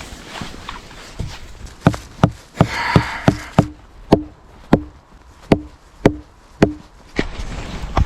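Wood being struck hard again and again: about a dozen sharp knocks, roughly two a second, most of the later ones with a short low ring after them. This is the sound of driving a wedge into a log joint.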